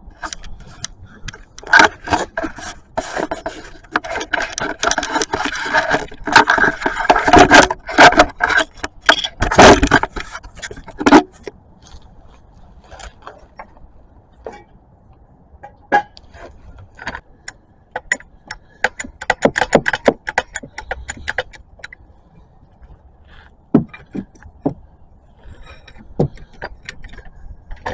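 A metal car jack being dragged into place and positioned under the car: repeated scraping, clanking and rattling, busiest in the first ten seconds, then scattered clicks and rattles.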